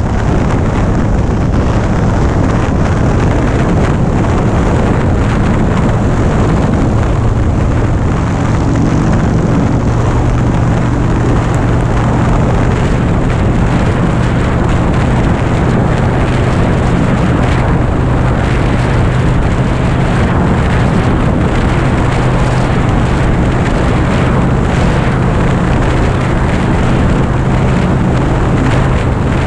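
Harley-Davidson FXDB Dyna Street Bob's V-twin engine running steadily at highway cruising speed, with wind noise on the microphone.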